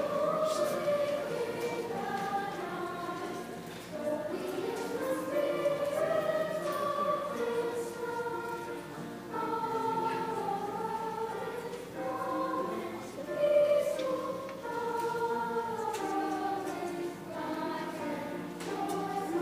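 School choir singing in harmony, long held notes in slow phrases.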